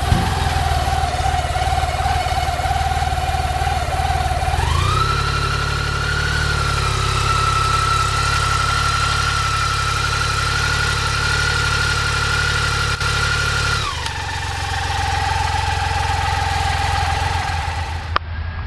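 BMW K75S motorcycle's three-cylinder engine running at idle; about four and a half seconds in the engine speed rises and holds steady at a higher pitch for about nine seconds, then drops back to idle. Near the end it cuts to another K75S idling.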